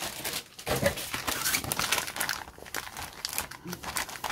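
Clear plastic bag around a model kit sprue crinkling as it is handled, a dense run of quick, irregular rustles.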